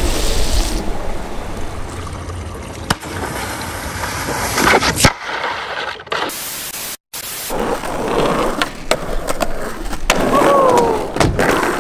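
Board noise from a string of short cuts: a skimboard sliding and scraping over wet pavement and cobblestones, then skateboard wheels rolling. Sharp board knocks come about three and five seconds in and again near the end, and the sound cuts out for a moment about seven seconds in.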